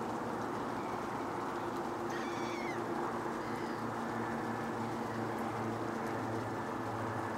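One short, pitched bird call about two seconds in, with a fainter call just after it, over a steady low engine hum.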